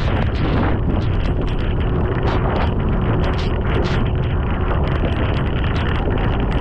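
Heavy rain pouring down, with wind buffeting the microphone in a steady low rumble. A faint steady hum runs through the middle.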